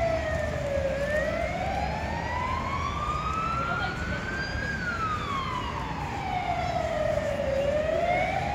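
Emergency vehicle siren in a slow wail: the pitch falls, climbs for about four seconds, falls again, and starts rising once more near the end, over a low background rumble.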